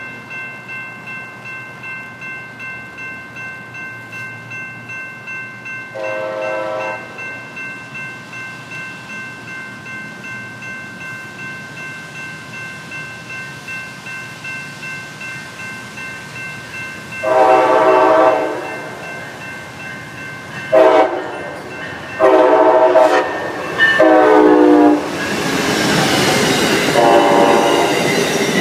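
Grade-crossing warning bell ringing steadily, about two strokes a second. The approaching Amtrak locomotive sounds its horn, first a short blast about six seconds in, then a series of loud long and short blasts as it nears the crossing. Near the end the rumble of the passenger train rises as it rolls past.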